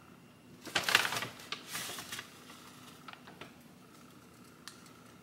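Takeout packaging being handled: a plastic dressing packet and paper takeout bag crinkling and rustling. There is one loud rustle about a second in, then scattered light crackles and clicks.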